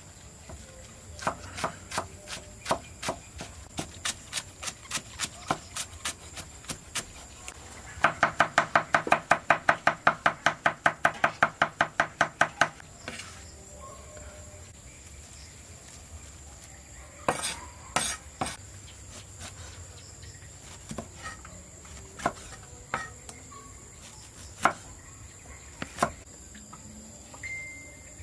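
Knife chopping food on a cutting board. Steady strokes come at about three a second, then a louder, faster run of about five a second lasts some four seconds, followed by scattered single chops.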